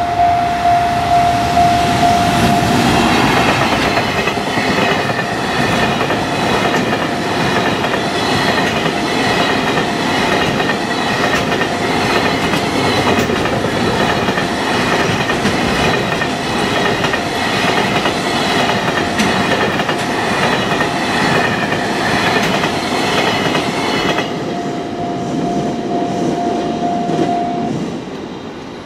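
Japanese freight container train passing a level crossing: its wheels clatter over the rail joints in a rapid, even rhythm for about twenty seconds. The crossing's warning bell rings throughout, plain before the train arrives. The train's tail passes about 24 seconds in, and the bell stops a few seconds later.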